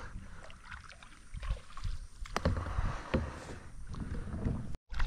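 Water splashing and a few sharp knocks on a fishing kayak, over a low rumble, with a brief dropout to silence near the end.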